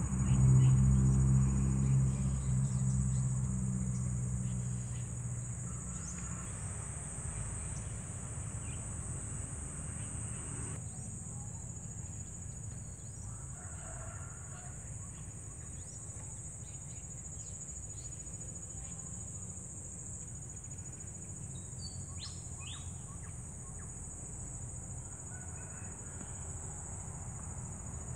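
A steady high-pitched chorus of insects, cricket-like, trilling throughout, with a few short bird chirps here and there. An engine's low hum fades away over the first few seconds.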